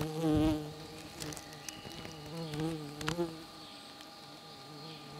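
A small insect's wings buzzing as it hovers and flies about a flower: a steady hum that wavers in pitch as it moves, loudest about half a second in and again near three seconds.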